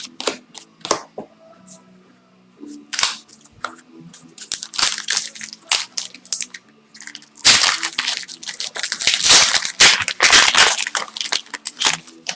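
Scattered clicks and taps, then, about seven seconds in, a dense few seconds of crinkling and crackling: the foil wrapper of an Upper Deck hockey card pack being torn open and crumpled.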